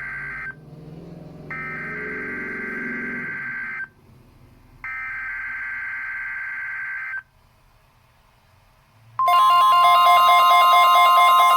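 NOAA Weather Radio EAS header through a Midland WR120 weather radio: the end of one burst of shrill SAME data tones, then two more bursts about a second apart, each lasting a couple of seconds. About two seconds after the last burst, a much louder, steady warning alarm tone starts and keeps going.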